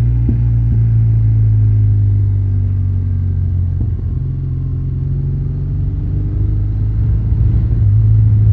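Motorcycle engine running steadily at road speed, its note dipping briefly about four seconds in and growing louder near the end.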